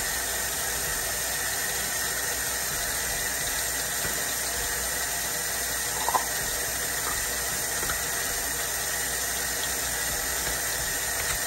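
Kitchen tap running steadily into a stainless-steel sink. A short, sharp click comes about six seconds in.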